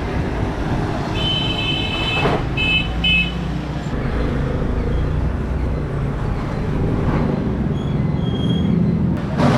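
Steady low rumble of passing road traffic, with a high horn sounding about a second in: one longer blast, then two short toots.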